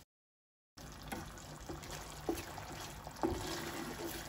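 Thick buffalo hot sauce being stirred with a wooden spatula in a nonstick pan, giving wet squelching and small bubbling pops. The sound cuts in after a brief dead gap at the start.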